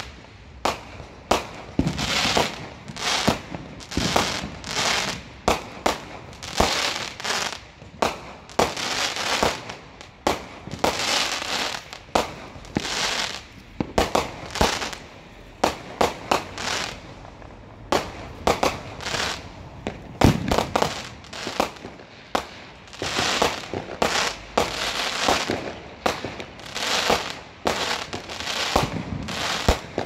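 Aerial fireworks launching and bursting in quick succession, about one or two sharp bangs a second, many followed by crackling.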